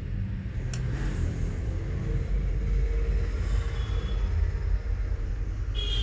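A steady low background rumble, with a faint tick about a second in.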